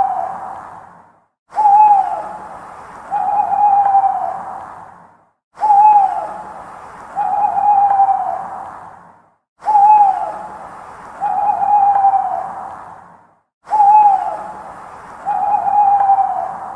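Owl hooting in pairs: a short falling hoot, then a longer drawn-out hoot about a second and a half later, the pair repeating about every four seconds, four times. It is one recording looped, its background hiss cutting out for a moment between repeats.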